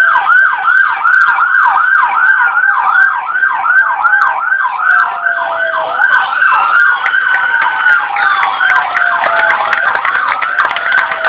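Emergency vehicle siren yelping, its pitch sweeping up and down rapidly about two and a half times a second. More siren tones overlap it over the second half.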